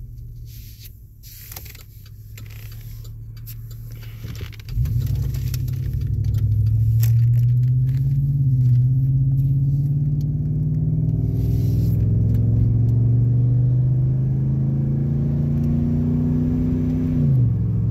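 Exhaust of a 5.3 L LC9 V8 in a Chevrolet Silverado, through a Magnaflow 11226 straight-through muffler with the third catalytic converter deleted, heard inside the cab with the windows up. A low idle rumble gives way about five seconds in to a loud, deep drone as the truck pulls away and accelerates; the pitch climbs slowly, then drops suddenly near the end.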